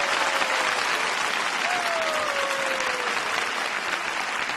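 Arena audience applauding steadily, with two long falling whoops from the crowd, one fading out early and another from about 1.7 to 3 seconds in.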